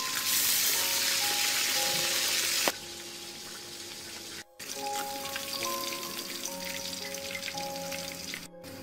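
Stingray pieces deep-frying in hot oil in a wok: a loud, even sizzle that cuts off abruptly about three seconds in, after which only a fainter crackling remains.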